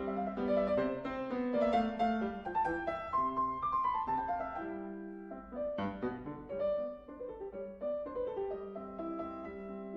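Background piano music: a classical sonata movement in a moderate tempo, with melody and chords played on piano.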